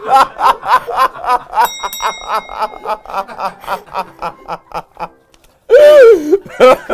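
A man's hearty laughter, a fast string of 'ha' pulses that trails off about five seconds in, with a short ringing tone about two seconds in. After a brief pause comes a loud, drawn-out 'uääuh!' cry, and then laughter again.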